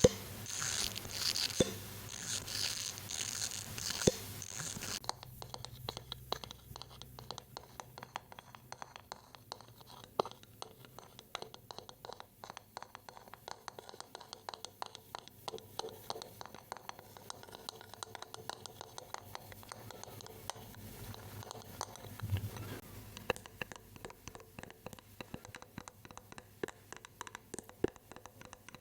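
Close-miked ASMR trigger sounds: a brighter, hissy, crinkly rustling for the first five seconds or so, then quieter, dense, fast clicking and scratching.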